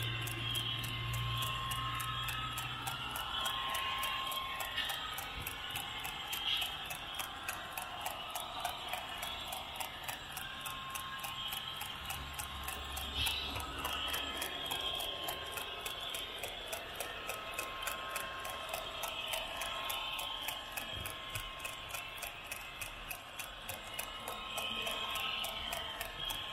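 Model railway train running along the track: the wheels click over the rail joints in a steady rhythm of about three clicks a second, over a low running hum and a faint whine.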